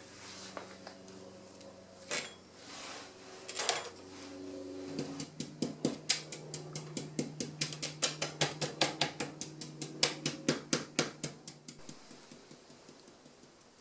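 Light tapping and clinking on glass: two single clinks, then a fast, even run of about four sharp taps a second that fades out near the end.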